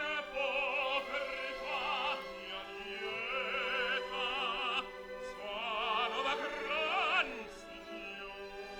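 Operatic singing with a wide, wavering vibrato over sustained accompanying notes, in several long phrases that soften near the end.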